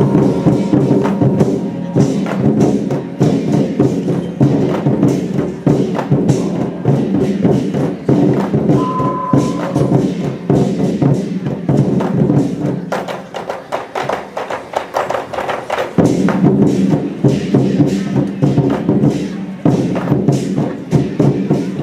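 Lion-dance percussion band playing: a war drum with gongs and cymbals beating a fast, dense rhythm, with held pitched tones over it that drop out for a few seconds midway and then return.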